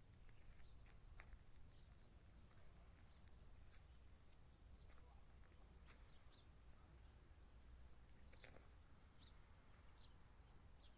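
Near silence: faint, scattered short high chirps of small birds over a low, steady background rumble.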